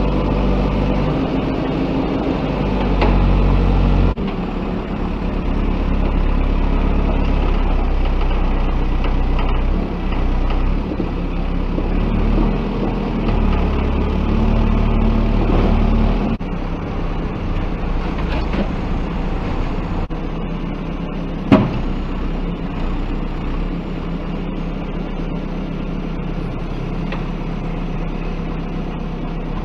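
Diesel engine of a JCB 3DX backhoe loader running under a changing load as it digs and loads mud. The engine note drops about four seconds in and again around sixteen seconds, and there is a single sharp click a little after twenty seconds.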